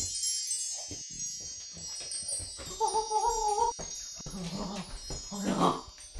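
High, tinkling chime tones ringing together and slowly fading, with a short wavering tone about three seconds in.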